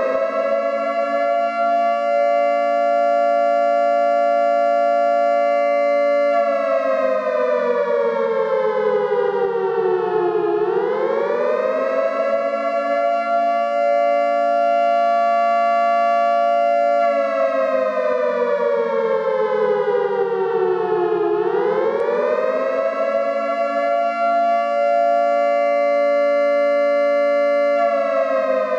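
Outdoor civil-defense warning siren wailing in a two-tone chord: the pitch climbs quickly, holds steady for about five seconds, then slides slowly down before climbing again, a cycle of about ten seconds, heard nearly three times.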